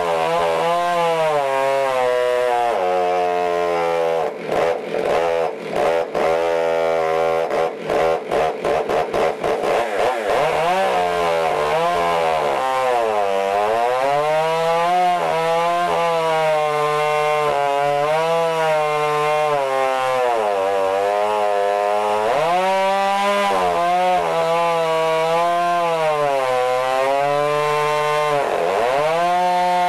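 Modified Stihl MS661 two-stroke chainsaw running at high revs while ripping a log lengthwise in a chainsaw mill. Its pitch sags and recovers several times as it bogs in the cut, and about four seconds in the sound stutters with short gaps for several seconds.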